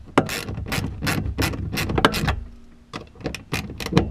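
Hand ratchet clicking in quick runs as a nut is turned on a mounting stud through the car's trunk floor, with a short pause about two and a half seconds in.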